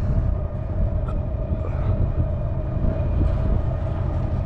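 Large container ship's engines passing close by: a steady low rumble with a constant droning hum.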